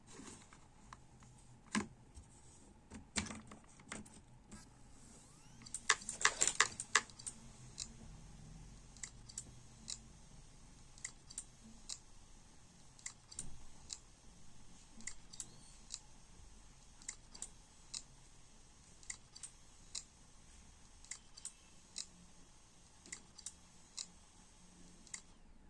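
Hard disk drive clicking over and over, sharp single clicks about once or twice a second, with a quick run of louder clicks about six seconds in. This is the hard drive "click of death", typical of a head problem.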